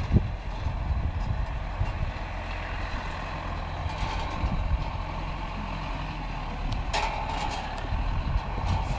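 John Deere 5820 tractor's diesel engine running steadily under load while it pushes snow with its front snow blade, with a brief sharp knock about seven seconds in.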